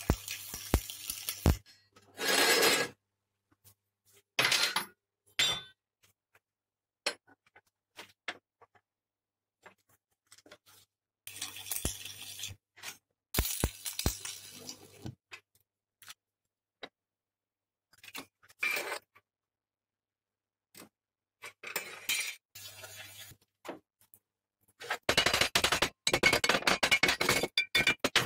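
Electric arc welding in short runs on steel: the arc crackles and sizzles, with a steady mains hum under some runs. The runs are separated by stretches of near silence, and the longest, loudest run comes near the end.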